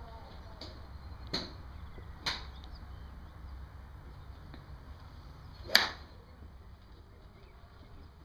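Golf clubs striking balls off driving-range mats: a few sharp cracks, the loudest about two-thirds of the way through.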